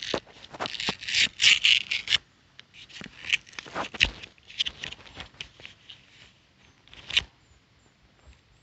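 Handling noise: crinkly rustling and scraping for the first two seconds, then scattered faint clicks and rustles, with a sharper tick about seven seconds in.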